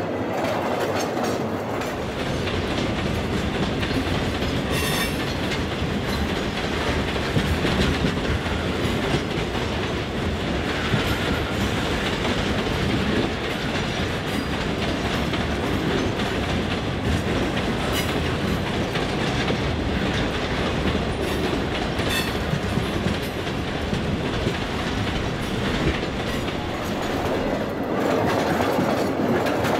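Loaded iron-ore hopper cars (ore jennies) rolling past close by, steel wheels clicking over bolted rail joints in a steady rumble, with a few sharper metallic clanks.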